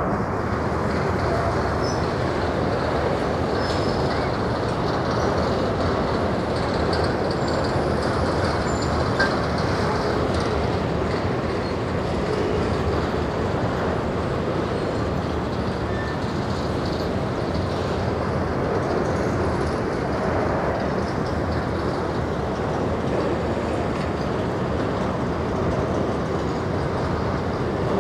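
Empty covered hopper wagons of a grain freight train rolling past: a steady rumble of steel wheels on the rails, with a few faint short squeals from the wheels now and then.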